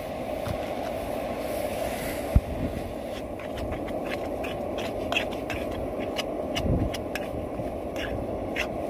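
Camping gas stove burner running steadily under a metal pan. A single knock comes about two seconds in. From about three seconds in, a spoon stirs mince in the pan, scraping and clicking against the metal.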